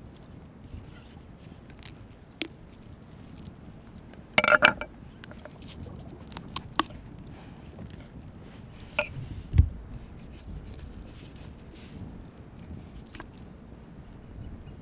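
A raw goose being handled and cut with a knife up close: wet tearing and crackling of the skin with scattered sharp clicks. A burst of crackling comes about four and a half seconds in, and a dull thump comes shortly before ten seconds.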